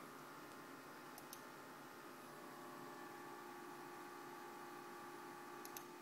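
Near silence: steady faint electrical hum of room tone, with two pairs of faint clicks, one about a second in and one near the end.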